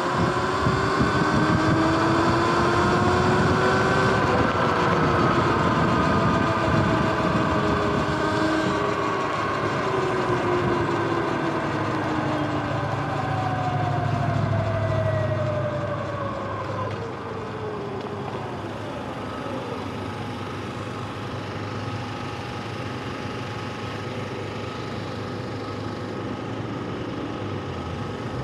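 Sur-Ron electric dirt bike's motor and drivetrain whine, several tones together, rising as the bike speeds up over the first few seconds, then falling slowly as it slows for traffic, with wind rushing over the microphone. Past the middle the whine dies away and only quieter, steady road and traffic noise remains.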